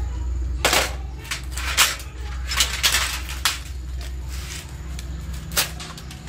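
Irregular clicks and knocks of plastic and metal parts being handled as an electronics unit is dismantled: a plastic front panel and a wired circuit board are lifted out of a sheet-steel chassis. A low steady hum runs underneath.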